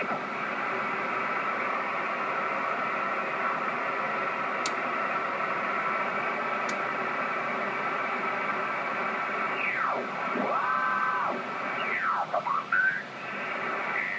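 Icom IC-781 shortwave receiver hissing with band noise in upper sideband as its tuning dial is turned across the 20-metre band. About ten seconds in, signals sweep through as whistles sliding up and down in pitch while the receiver tunes past them.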